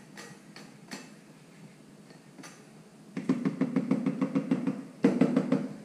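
Spatula beating thick cake batter in a plastic bucket: a few light taps, then from about three seconds in a fast, even run of strokes, about seven or eight a second, a short pause, and a second brief burst near the end.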